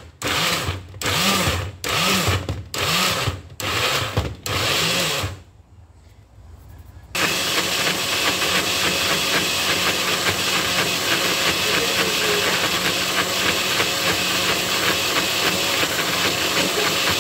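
Electric blender grinding a wet chilli and turmeric spice paste. The motor runs in about seven short pulses, each spinning up and down, then stops for about two seconds before running steadily and noisily, turning the paste smooth.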